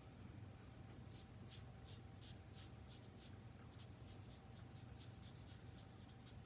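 Faint, quick strokes of a Stampin' Blends alcohol marker's felt tip rubbing across cardstock as a stamped image is coloured in, about two to three strokes a second, starting about half a second in, over a faint steady hum.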